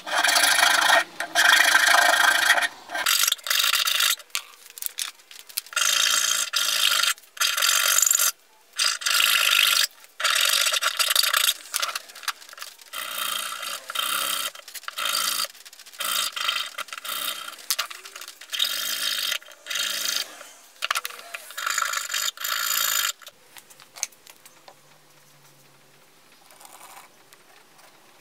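Hand files rasping on the edges of a wooden cutout: a flat file, then a round file, pushed in repeated strokes of uneven length with short pauses between them. The strokes stop a few seconds before the end, leaving only faint ticks.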